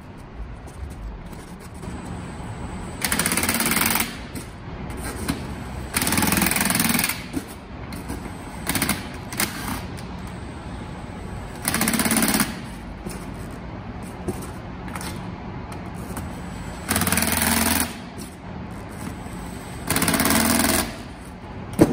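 Cordless impact driver hammering on the bolts of a split power-wheelchair wheel rim: five bursts of about a second each, spread out as the wheel is turned from bolt to bolt, with small clicks and handling knocks between them.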